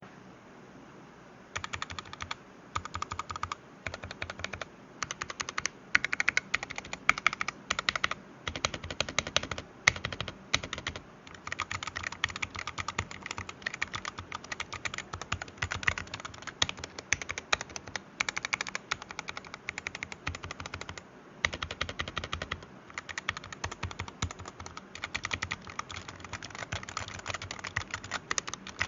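Redragon K617 Fizz 60% mechanical keyboard with red switches being typed on in fast runs of key clacks, broken by short pauses. The typing starts about one and a half seconds in.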